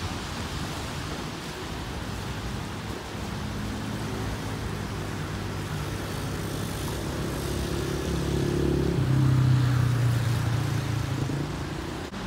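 A passing engine drones over a steady outdoor rush of wind and moving water, building to its loudest about nine seconds in and fading near the end.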